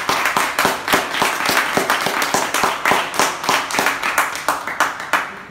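A small group applauding, with individual claps distinct; the clapping thins out and dies away near the end.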